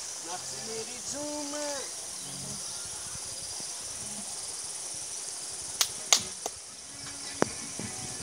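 Steady high-pitched buzzing of insects, with a short distant pitched call about a second in and a few sharp clicks a little past the middle.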